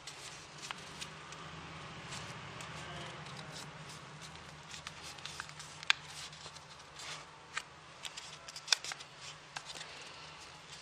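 A 15 cm square of origami paper being folded and creased by hand: soft rustling with scattered crisp crackles and clicks, and two sharper snaps in the second half.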